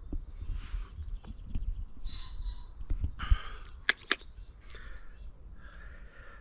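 Small birds singing outdoors: short, high chirping phrases repeated again and again, over a low rumble of wind on the microphone. A couple of sharp clicks come about four seconds in.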